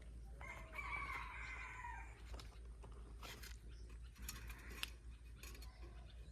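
A rooster crowing once, a single drawn-out call of about a second and a half, with scattered small clicks and knocks around it.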